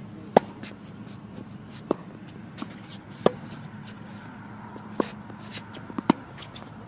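Tennis ball struck back and forth in a rally: sharp racket-on-ball pops about every one and a half seconds, with the strokes of the nearer player loudest and the far player's hits and the bounces quieter between.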